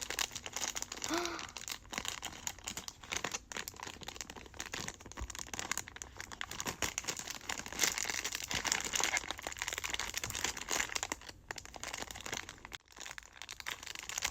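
Packaging crinkling and rustling as it is handled and opened by hand, with a dense run of irregular crackles.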